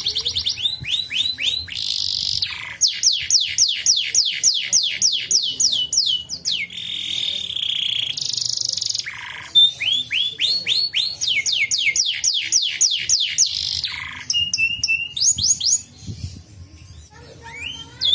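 Domestic canary singing: fast rolling trills and rapid runs of repeated downward-sweeping notes, a buzzy held note in the middle, and a short break near the end.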